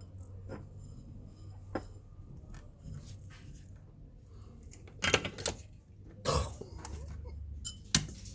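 Scattered clicks and knocks of small hard objects being handled, loudest in a cluster about five seconds in and again near the end, over a low steady hum.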